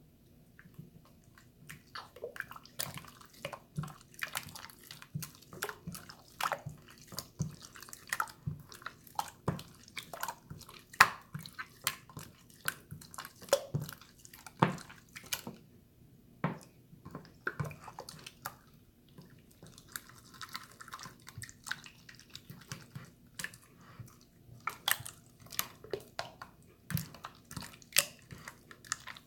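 Hands squeezing and poking a watery, jiggly slime, making many irregular wet clicks, squelches and drips.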